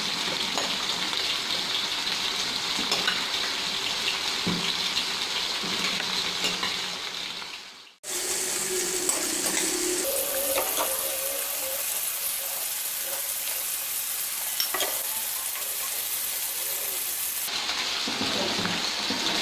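Onions, tomatoes and green chillies sizzling in a frying pan, with a pot of salted water boiling alongside as soaked rice is tipped in. The sound cuts out for an instant about eight seconds in, then comes back as a brighter hiss for most of the rest, with a few faint knocks.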